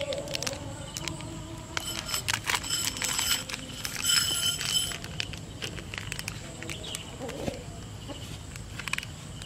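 Crackling and clicking from a plastic snack packet being handled, then a metal spoon clinking and ringing against a ceramic bowl as a baby monkey paws at it about four seconds in.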